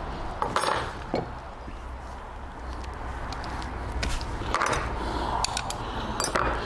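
Hand tools clicking and clinking on metal while working on a bolt, scattered sharp clicks with a few brief scrapes, over a low steady hum.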